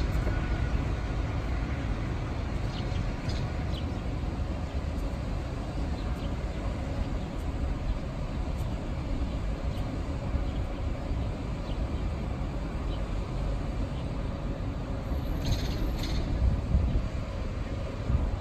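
Railway platform ambience with a steady low rumble while a Zentralbahn electric train stands at the platform, and a few faint ticks. A brief high chirp comes about fifteen seconds in.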